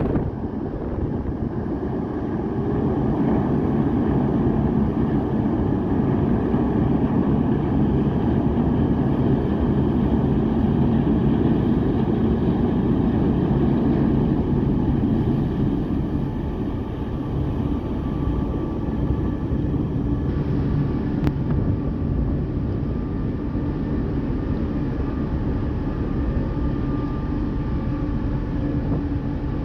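Ferry's diesel engines running steadily, a low continuous rumble with a few steady humming tones.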